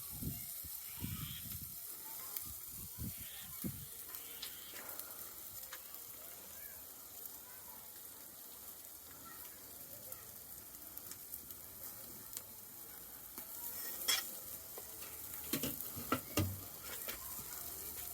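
Fish frying in hot oil, with a steady sizzle throughout. There are a few soft thumps in the first few seconds and several sharp knocks near the end.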